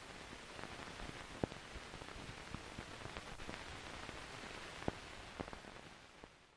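Faint steady hiss and crackle of an old film soundtrack, with scattered small clicks and two sharper pops, one about a second and a half in and one near five seconds. The hiss fades away near the end.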